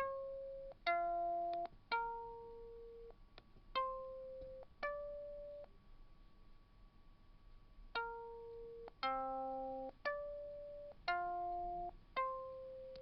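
Computer-synthesized guitar playing back a simple melody converted from singing: about ten plucked notes, roughly one a second, some sounding two pitches at once, with a pause of about two seconds in the middle.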